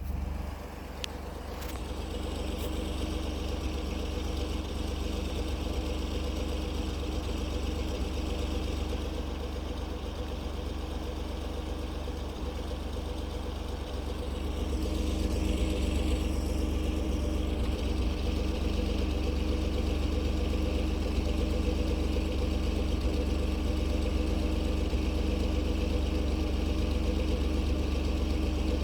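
Ford F-150's 3.5-litre EcoBoost twin-turbo V6 idling after a cold start, with the rough idle its owner complains of. It runs steadily and grows a little louder about halfway through.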